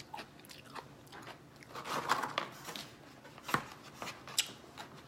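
A person biting into and chewing a pickle, with wet, crunchy bites. The sharpest crunches come about three and a half and four and a half seconds in.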